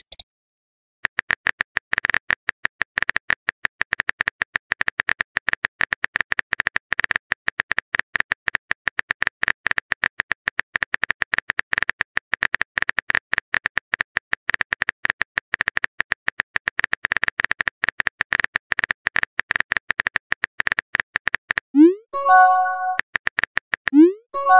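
Rapid, steady clicking of a phone-keyboard typing sound effect for about twenty seconds. Then, twice near the end, a rising pop with a short chime: the sound of a new message bubble appearing.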